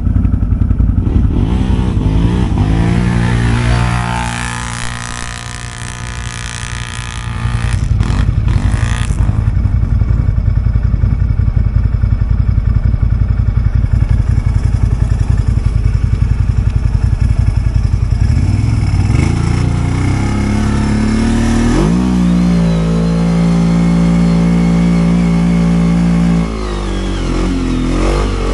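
Quad bike engine revving hard on rough ground. The pitch dips and climbs several times, with a few sharp knocks about eight seconds in, then it rises and is held at high revs for a few seconds before easing off near the end.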